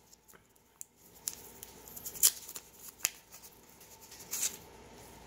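Scattered sharp clicks and rustling from bullion rounds in clear plastic capsules and their packaging being handled, with the loudest click a little past two seconds in.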